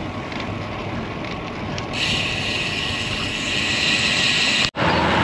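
Wind noise on the microphone and tyre noise from a road bike riding along a concrete street. About two seconds in a brighter hiss joins, and the sound cuts out for an instant near the end.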